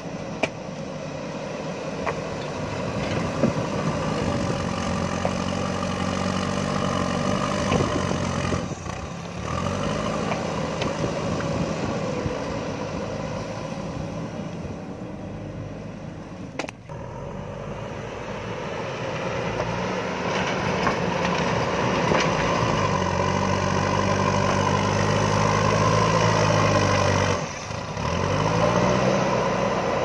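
JCB backhoe loader's diesel engine working hard, its pitch dropping and climbing again several times as the loader bucket pushes and lifts gravel, with a few sharp knocks in the first several seconds.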